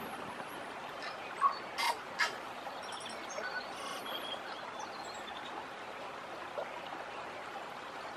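Steady rush of a shallow river flowing over stones, with small birds chirping now and then and a few brief sharp splashes in the first couple of seconds.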